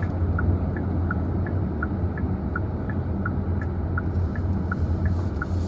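Inside a moving car: a steady low engine-and-road rumble, with a light tick repeating evenly about three times a second.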